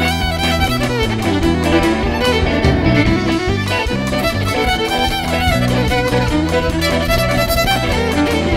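Fiddle bowing the melody, with electric guitar and bass guitar accompanying.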